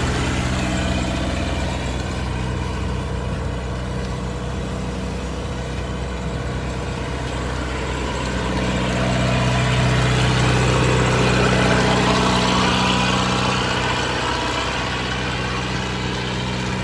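Road traffic with car and truck engines running and idling. The sound swells louder for a few seconds about halfway through, then settles again.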